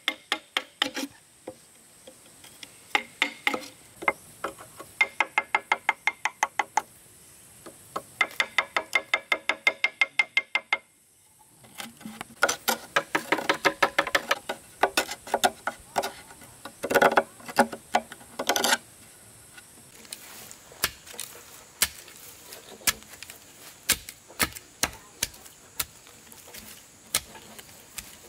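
Rapid knocking in bursts of several strokes a second, each stroke with a short ring. The knocks come denser and louder in the middle and thin out to scattered single knocks near the end.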